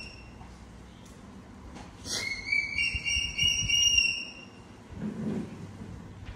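Baby macaque giving one long, high-pitched whining call about two seconds in, lasting about a second and a half. Weaker low thumps from handling follow.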